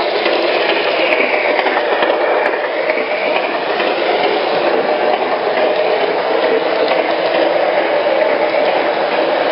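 O-gauge model freight train rolling past on three-rail track: a steady rumble of metal wheels on the rails as the double-stack intermodal well cars go by. A faint whine dips in pitch and rises again about one to three seconds in as the locomotives pass.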